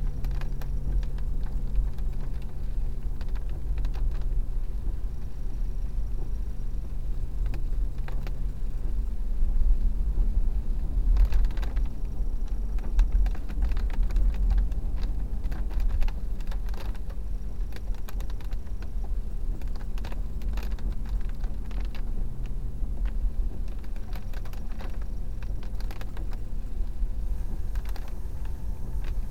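Car driving over a rough, rutted dirt track, heard from inside the cabin: a steady low road and engine rumble with many irregular clicks and rattles as it jolts over the surface.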